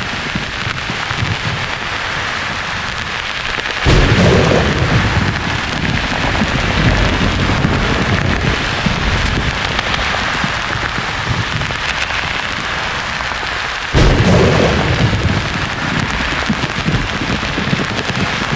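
Steady white-noise hiss with two claps of thunder, about four seconds in and about fourteen seconds in, each breaking in suddenly and rolling on as a low rumble for several seconds.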